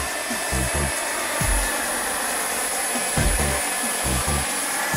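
JetCat PHT-3 kerosene turbine of an RC turbine helicopter running under power: a steady jet hiss with a thin high whine on top. Irregular low thumps sound underneath.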